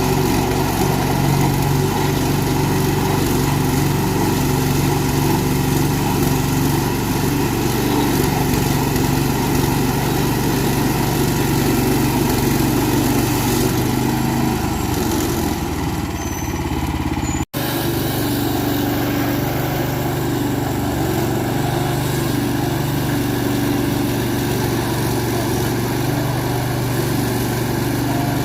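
Gasoline engine of a portable Frontier band sawmill running steadily, with a brief sudden dropout a little past halfway.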